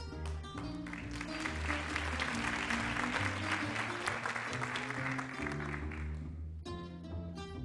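Audience applauding for about five seconds, starting about a second in and dying away, over a small jazz band that keeps playing, its bass walking underneath.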